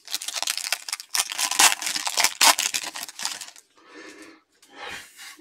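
Foil wrapper of a Mosaic football trading-card pack crinkling and tearing as it is ripped open: a dense crackle for about three and a half seconds, then softer rustling.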